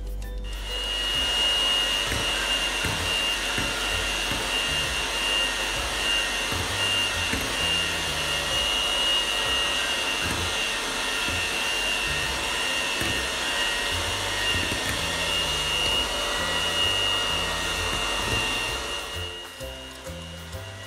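Electric hand mixer running steadily with a high motor whine, its beaters whisking cake batter in a glass bowl. It stops near the end.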